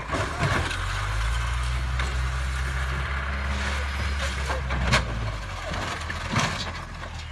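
A large vehicle's engine running steadily, with a few sharp knocks or bangs; the loudest comes about five seconds in.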